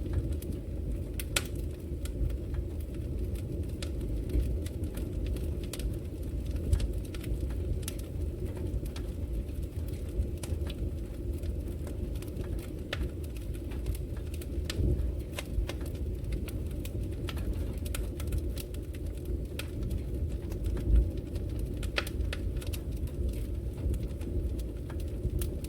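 Wood fire crackling in a fireplace: irregular sharp pops and snaps over a steady low rumble of the flames, with one louder pop a little before the end.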